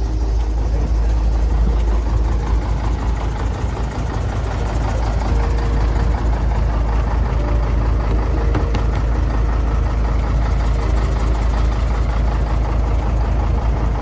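Parked bus engine idling steadily with a deep, even rumble.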